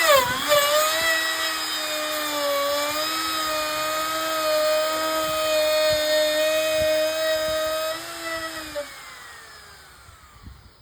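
Wood router running with a 1/4-inch carbide cove bit while routing the edge of a 1x6 board, a steady high whine whose pitch sags slightly about two to three seconds in. About eight seconds in it is switched off and spins down, the whine falling in pitch and fading.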